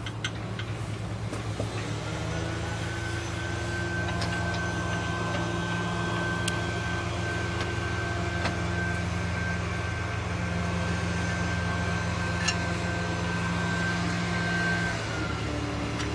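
A motor running steadily with a hum and a high whine. It spins up about two seconds in and winds down near the end, with a few sharp clicks along the way.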